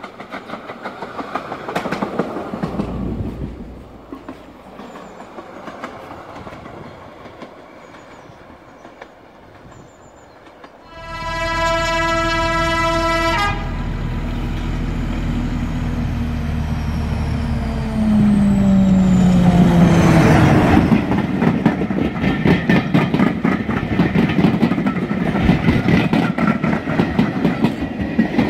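Swedish Y7 railcar running past, its wheels clicking over the rail joints. About eleven seconds in, a British Rail Class 14 diesel locomotive sounds one long horn blast of about two and a half seconds, then runs by with its engine note dropping in pitch. Near the end, train carriages clatter past over the rail joints in a fast, loud rhythm.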